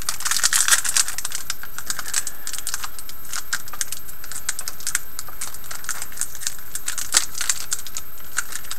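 A Panini Select hockey card pack's wrapper being worked and torn open by hand: crinkling and crackling, a quick flurry at first and then scattered clicks, over a steady hiss.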